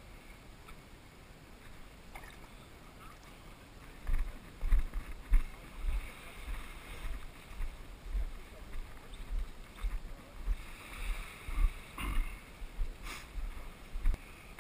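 Quiet hiss at first. From about four seconds in come footsteps on wet sand, picked up through a camera worn by the walker as low thumps at about two a second.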